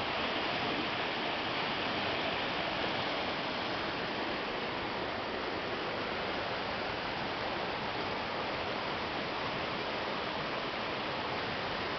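Small river swollen by typhoon rain, its high water rushing steadily.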